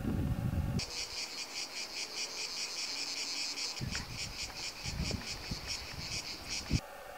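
Wind rumbles on the microphone for about the first second. Then a cicada sings, a rapid pulsed high buzz that starts abruptly and cuts off just before the end, with a few low wind buffets under it.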